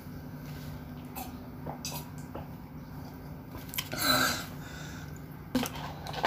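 A child drinking from a paper cup, with faint small clicks while he drinks, then a short loud breathy sound about four seconds in as the cup comes down. Near the end, a couple of sharp clicks of a plastic fork in the spaghetti tray.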